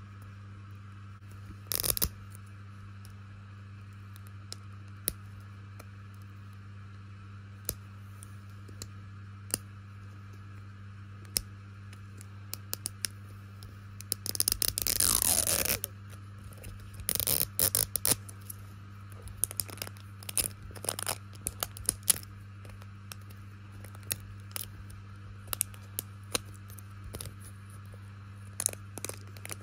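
Fingernails clicking and scraping on the plastic wrapper of a surprise ball. About halfway through, a longer tearing sound falling in pitch as the wrap is peeled open, then more short crinkles and scratches.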